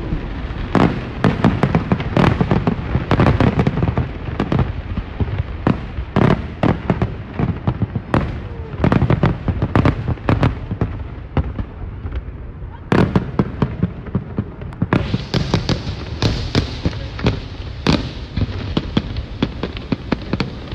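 Fireworks display: a rapid, irregular barrage of aerial shell bangs over continuous crackling. The crackling grows denser and sharper about three-quarters of the way through.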